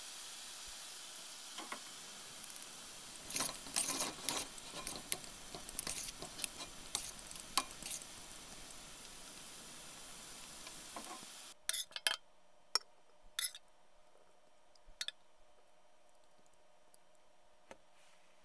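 Chicken and sausage in pan sauce sizzling steadily in a skillet, with a run of clinks and scrapes about three to eight seconds in as it is stirred. The sizzle cuts off suddenly about eleven seconds in, followed by a few sharp clinks of serving onto a plate.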